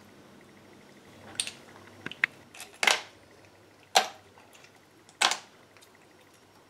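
Snail shells clicking sharply against each other and against a ceramic bowl as live snails are handled and set down one at a time, about half a dozen irregular clicks.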